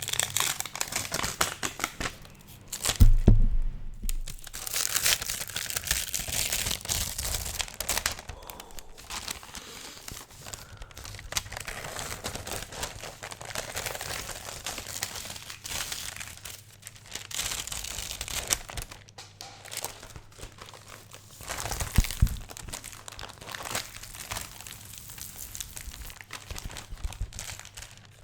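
Beeswax food wraps crinkled and scrunched by hand close to the microphone: a dense, continuous crackling with sticky, tearing rustles. Two brief low thumps, about three seconds in and again around twenty-two seconds.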